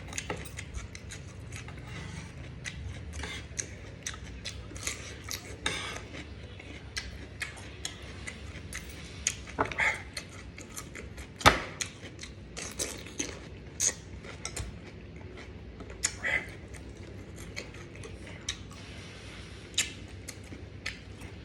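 Close-up mukbang eating sounds: irregular clicks and taps of chewing and of utensils against a plate, with one sharp click about halfway through.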